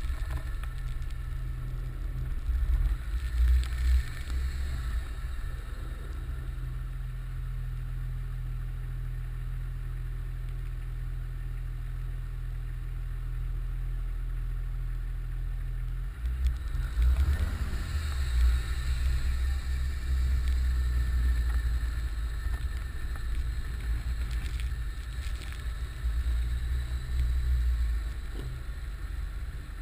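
Nissan Patrol Y60's 2.8-litre straight-six turbodiesel engine running under load while driving through snow, with a steady deep rumble that surges with the throttle about three seconds in and again from about halfway. A faint high turbo whistle sits above it.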